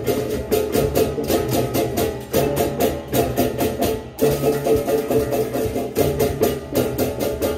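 Balinese baleganjur processional gamelan playing: rapid, even clashes of hand cymbals over a busy ringing melody of tuned gong-chimes and low gong tones.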